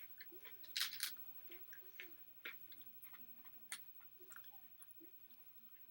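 Close chewing and mouth sounds of someone eating takeout food, a scatter of short wet clicks and smacks at an uneven pace, loudest about a second in.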